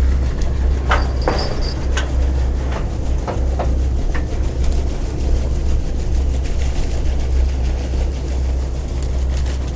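Fishing boat's engine running with a steady deep drone, with a few sharp metallic clanks and a short high squeal in the first four seconds as the razor-clam dredge cage is lowered over the side.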